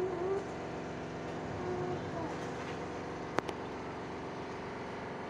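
A steady low mechanical hum with several pitched lines, and a single sharp click about three and a half seconds in.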